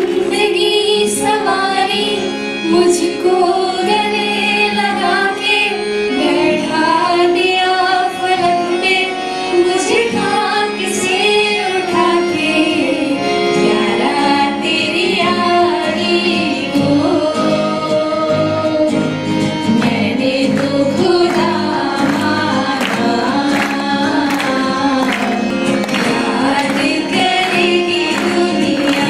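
Girls singing a song into handheld microphones over instrumental accompaniment, amplified through the hall's sound system.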